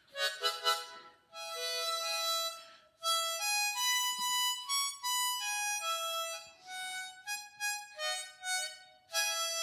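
Hohner harmonica played solo: a few short notes, then longer held notes and a run of changing notes, echoing in a bare, uncarpeted room.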